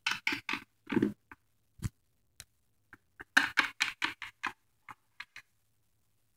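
Small plastic toy figures tapped and hopped along a hard shelf: a run of quick, irregular taps in two clusters, with a few single ticks between.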